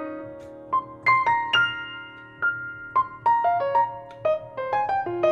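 Background piano music: a few long ringing notes, then a quicker run of single notes from about three seconds in.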